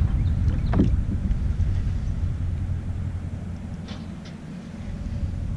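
Wind buffeting the camera microphone: a low, steady rumble that eases off about four seconds in and then builds back, with a few faint ticks.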